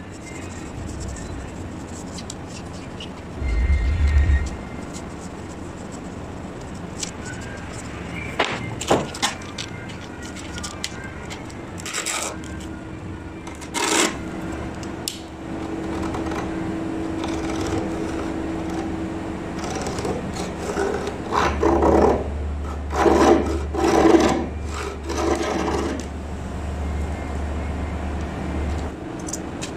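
Bench-work handling sounds: scattered knocks and scrapes of a hand tool working a thin brass strip, with a low hum about four seconds in and again over the last third.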